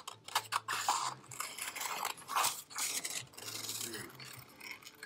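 Scissors cutting through a sheet of green colored paper in a run of short, crisp snips as the blades work around a curve to cut out an oval.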